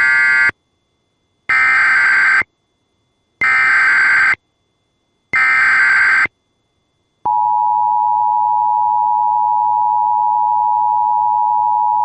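Emergency Alert System header: short bursts of SAME digital data tones, about a second each and about two seconds apart, followed from about seven seconds in by the steady two-tone EAS attention signal. The sequence marks the start of an emergency alert.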